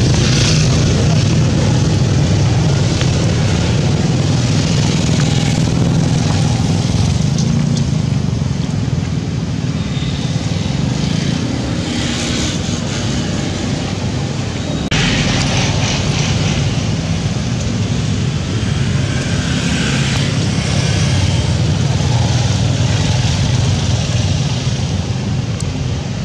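Steady low drone of a running engine or motor, with a hiss over it.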